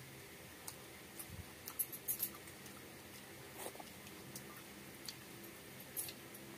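Quiet eating by hand: fingers mixing and scooping rice off a banana leaf and mouth sounds of chewing, with a few sharp clicks about two seconds in and again near the end.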